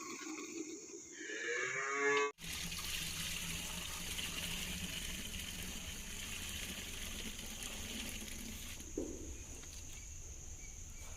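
A cow mooing, one long call that rises in pitch over about two seconds, followed by a steady background hiss with a brief short call about nine seconds in.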